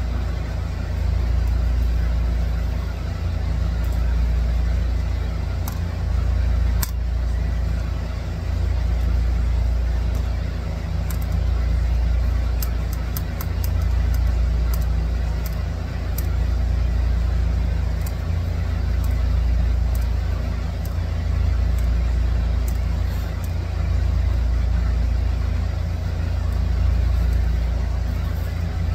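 A loud low rumbling hum that swells and eases every two to three seconds, with a few faint ticks around the middle.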